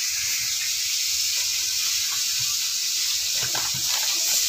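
Hot oil sizzling steadily in frying pans with koi fish and bitter gourd frying. Near the end, plastic grocery bags crinkle as a hand reaches in among them.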